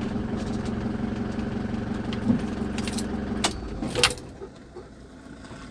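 Camper van's engine idling, then switched off between three and four seconds in, with two sharp clicks and a jingle of keys as it stops.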